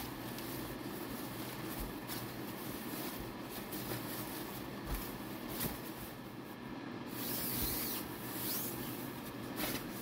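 Rustling and swishing of a puffy nylon sleeping bag being spread out and smoothed by hand, loudest about seven to nine seconds in, with a few soft bumps, over a steady low hum.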